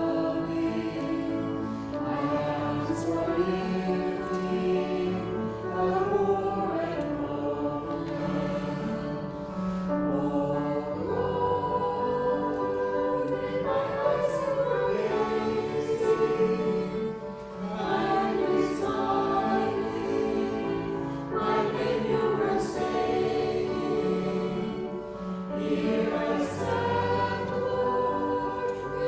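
A group of voices singing a hymn together over a sustained accompaniment, phrase after phrase without a break.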